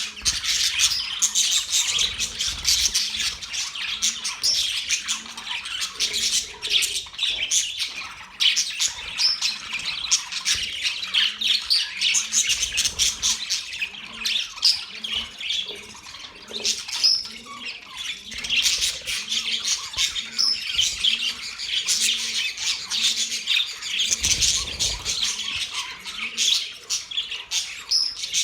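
A flock of budgerigars chattering continuously: a dense mix of squawks, chirps and warbling that never pauses.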